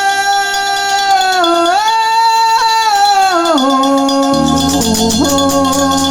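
A wordless aboio, the Brazilian sertão cowherd's sung cattle call: one voice holding long drawn-out notes, stepping up once and then sliding down to a long low note, with a shaker rattling underneath.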